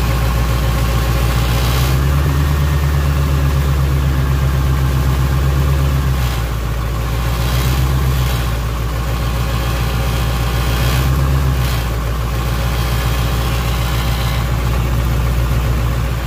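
Naturally aspirated 8.2-litre Detroit diesel V8 of a 1988 GMC 7000 truck running, after its crank-no-start fault was traced to the governor rack and the rack was adjusted. It idles steadily and picks up revs three times: a longer rise a couple of seconds in, then short ones around eight and eleven seconds.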